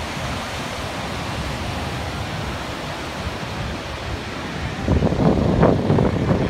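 Steady rush of river water pouring over the stepped Pulteney Weir. About five seconds in, irregular gusts of wind buffet the microphone and become the loudest sound.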